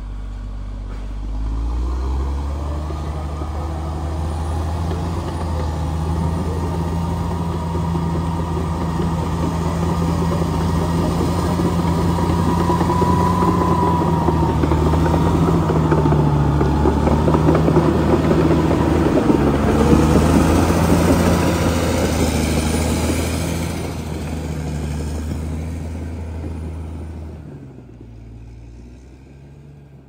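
Caterpillar D6R XL crawler bulldozer passing close: its diesel engine runs steadily under load while the steel tracks clatter. The sound builds to its loudest past the middle, then falls away near the end as the machine moves off.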